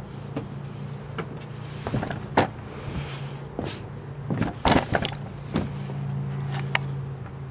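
Knocks and bumps of a heavy TIG welder being shifted on a dolly out of a vehicle's cargo area, the loudest cluster about two thirds of the way in, over a steady low hum.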